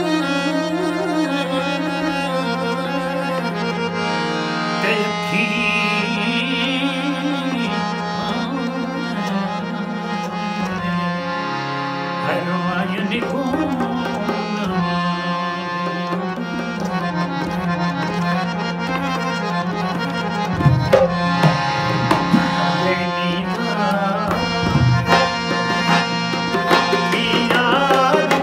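A male voice sings a slow, ornamented raag Bhairavi line over a steady harmonium drone. From about 20 seconds in, a rope-laced barrel drum (dholak) joins with loud, sharp strokes.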